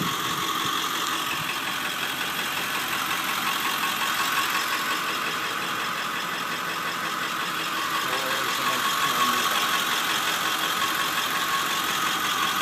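Ford E-350 van's V8 engine idling steadily, with a constant whine over the idle.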